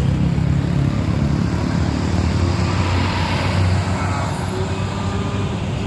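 Road traffic with the steady low drone of a large diesel engine running close by.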